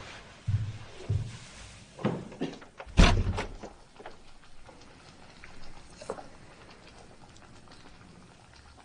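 A few soft thumps and knocks, as of doors and things being moved about a room. The loudest comes about three seconds in, with quiet room sound between them.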